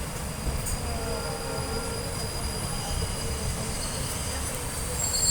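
Passenger train running on the rails: a steady low rumble with thin high-pitched squealing tones that grow louder near the end.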